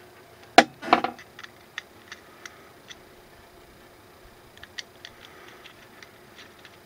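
Small metal gun parts being handled on a workbench: a sharp click about half a second in, a quick cluster of clicks and rattles around one second, then scattered light ticks.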